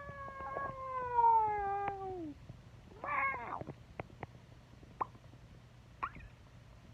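A cat's long, drawn-out meow that slides down in pitch at the end.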